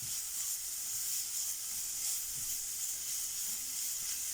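Carrots frying in oil in a hot skillet: a steady sizzle.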